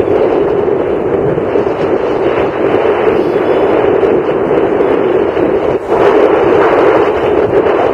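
Steady rushing wind and road noise on the microphone of a camera carried in a moving vehicle, with a brief dip about six seconds in.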